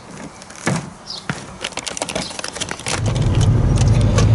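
Small handling clicks and rustles with a bird chirping, then, about three seconds in, a steady low engine and road drone from inside a moving car's cabin.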